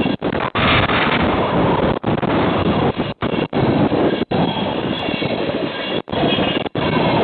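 Steady, loud rushing noise picked up by an outdoor railroad webcam microphone, cutting out briefly about eight times.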